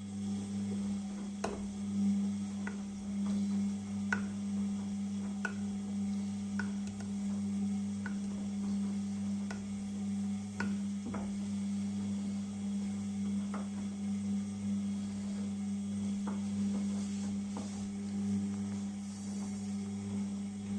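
Beko washing machine running: a steady low hum cuts in at the start, with light clicks about every second and a half from the load turning in the drum.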